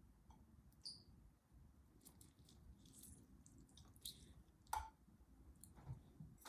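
Near silence with a few faint clicks and small knocks from hands at work over a salad bowl, the clearest one about three-quarters of the way through.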